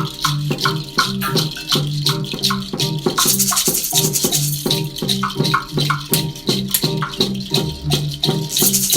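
A short rhythmic music piece: a repeating low pitched pattern under steady clicking percussion. A high hissing sound enters twice, about three seconds in for over a second and again near the end.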